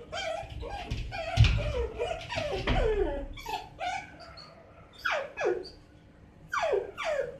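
Miniature dachshund puppy whining and yelping over and over, each cry sliding down in pitch: crying to be let out the door. There are dull thumps among the cries in the first few seconds.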